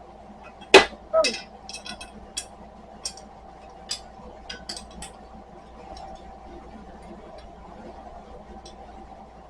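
Small metal furniture-assembly screws clinking as they are handled: a sharp clack about a second in, then a run of lighter clicks and ticks over the next few seconds.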